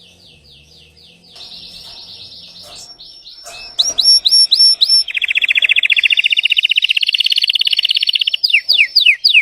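Domestic canary (Belgian canary) singing: fast repeated trills and rolls, soft at first and then much louder from about four seconds in, ending in a run of quick falling whistled notes.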